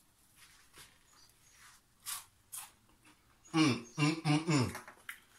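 Bites into a crispy double-fried potato waffle fry: two short crunches about two seconds in. Then, loudest, a man's wordless voice in a few short rising-and-falling sounds as he chews.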